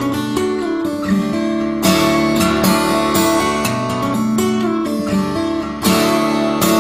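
Background music on acoustic guitar, picked notes with strummed chords about two seconds in and again near the end.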